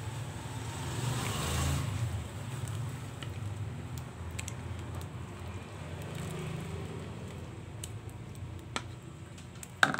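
Soup being scooped from a pot into a bowl, with a brief splashy pour about a second in and a few light clicks, over a steady low rumble; a sharp click near the end.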